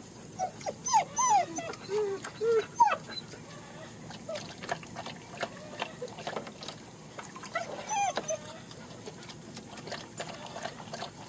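German Shepherd puppies whimpering and yelping: a quick run of short, high, wavering cries in the first three seconds and a few more about eight seconds in. In between, the German Shepherd mother laps water from a plastic wading pool with quick, light splashy ticks.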